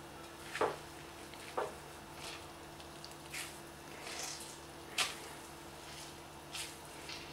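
Hands squeezing the juice out of finely grated raw potato: several short, soft squelches and drips of liquid falling into a glass bowl, a second or so apart.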